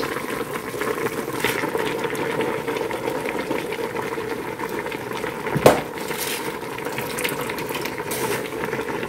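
Water at a rolling boil in a large stockpot as handfuls of raw collard greens are dropped in and rustled down into it. A single sharp knock a little past halfway, over a steady faint hum.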